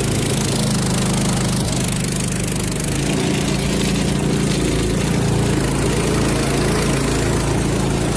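Small boat engine running steadily with the boat under way, a low even drone that holds one pitch.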